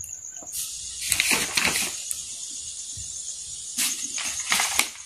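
Handling noise of a hand and pen moving over paper: a few brief rustling scuffs, over a faint steady high-pitched hiss.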